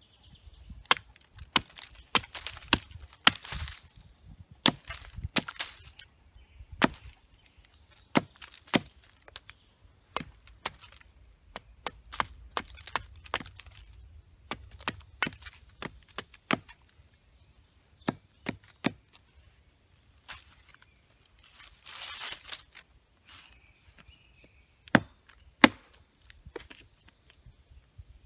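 Large homemade knife chopping into a thin birch pole: a long run of sharp, irregularly spaced knocks as the blade strikes the wood, some coming in quick clusters.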